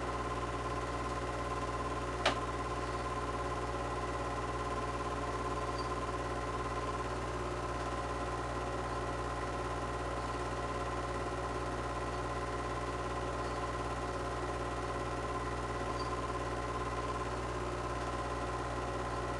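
Super 8 film projector running with a steady whirring hum, with one sharp click about two seconds in.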